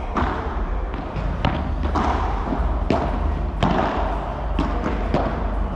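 Padel rally: a padel ball struck by rackets and bouncing on the court, heard as about six sharp, irregularly spaced knocks over a steady background hum.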